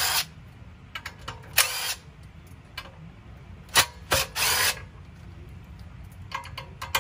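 Cordless power driver running in several short bursts as it backs the bolts out of the steel valve cover on a Predator 212 non-hemi engine.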